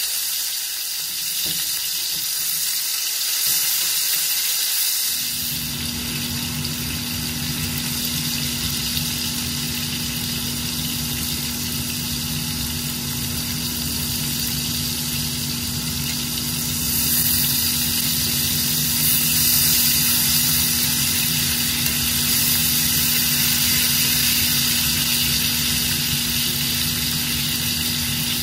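Steaks sizzling in hot olive oil and butter in a frying pan. About five seconds in, a steady low machine hum with one held tone comes on and runs under the sizzle.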